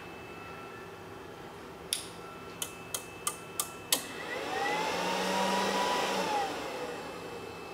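SMD Amp Dyno AD-1 amplifier load tester powering up: six sharp clicks in quick succession about two seconds in, then a fan-like rush that rises in pitch, holds for about two seconds and winds back down.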